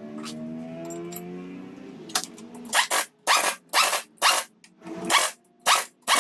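Pneumatic impact wrench fired in short, loud bursts, about two a second, running down a bolt on the engine's accessory bracket; the bursts start about two seconds in.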